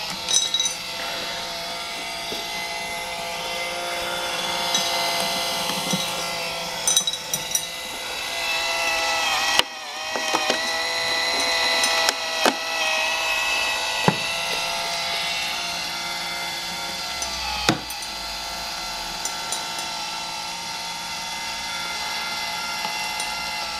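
12-volt, 5 rpm DC gearmotor running steadily with a whine, turning a one-inch auger bit that pushes dry dog kibble through a plywood feeder, with scattered sharp clicks of kibble catching and dropping. There is a brief drop-out about ten seconds in.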